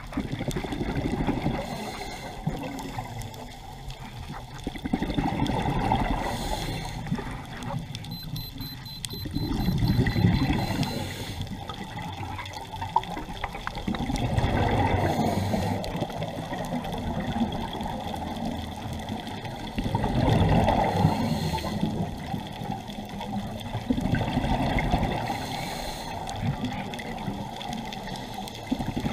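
Scuba diver breathing through a regulator, heard underwater: a surge of exhaled bubbles about every four to five seconds, with quieter stretches between.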